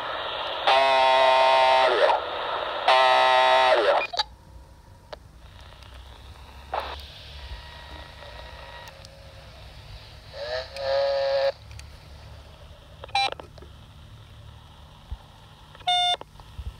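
Two steady buzzing tones, each a second or more long, come out of the speaker of a RadioShack TRC-241 handheld CB radio tuned to channel 19. Faint hiss follows, with a weaker tone and a few short beeps later on.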